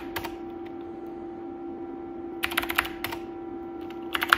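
Typing on a computer keyboard: a few key clicks at the start, then short runs of clicks about two and a half seconds in and again near the end, as 'root' and a password are entered at a Minix login prompt. A steady hum runs underneath.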